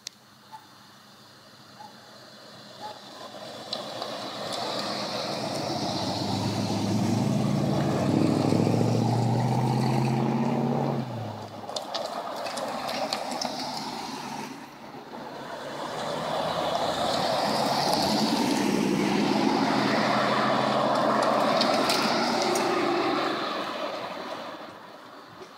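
Cars driving past one after another, a classic 1950s car and a Chevrolet Camaro convertible among them. The sound swells twice: first a passing car with a low engine note that fades out about eleven seconds in, then a second longer swell of passing traffic.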